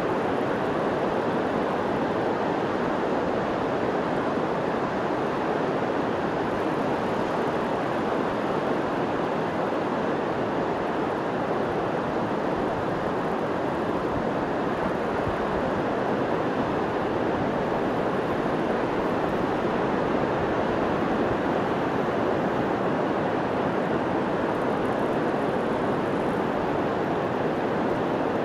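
Ocean surf on a sandy beach: a steady, even rushing noise with no separate wave crashes standing out.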